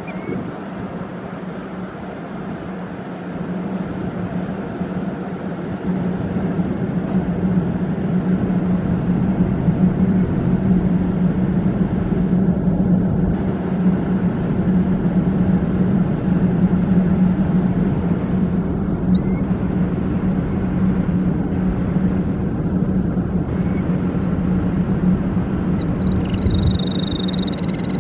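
A killdeer calling: a few short, high notes spaced seconds apart, then a longer held high call near the end. A steady low hum runs under it throughout, growing louder after the first few seconds.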